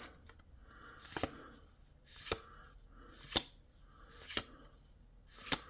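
Magic: The Gathering trading cards being flipped through one at a time, a short swish ending in a crisp snap, five times at about one-second intervals.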